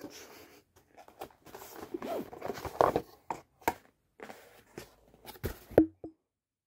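A cardboard gift box being opened by hand: irregular rustling of card and packing, with many short clicks and knocks from handling, which stop about six seconds in.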